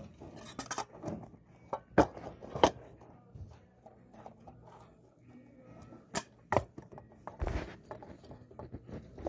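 Scattered sharp clicks and knocks of small hard objects being handled and set down, with a strong pair about two seconds in, another pair around six seconds in and a duller thump soon after.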